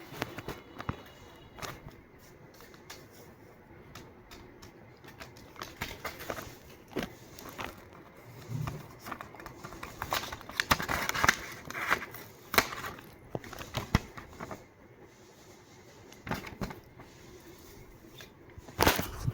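Paper being handled: scattered rustles, crinkles and small clicks, thickening into a longer stretch of crinkling about halfway through.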